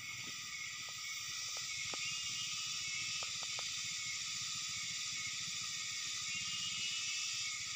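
Steady high-pitched outdoor hiss, with a few faint short chirps in the first few seconds.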